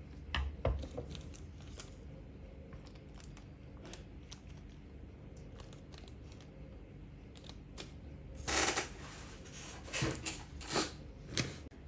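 Small metal carburetor parts and hand tools being handled on a workbench: scattered light clicks and taps, a short rustle about two thirds of the way through, then a few sharper clicks.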